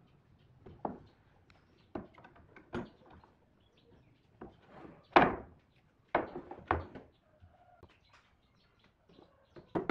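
Pipe clamps being taken off a glued-up wooden panel: a series of separate sharp knocks and clunks of the metal clamps against wood, the loudest about five seconds in.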